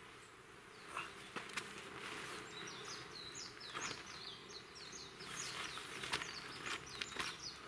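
Faint rustling and knocks from a canvas tarp being handled and shifted, while a small bird calls a quick series of short high chirping notes in two runs.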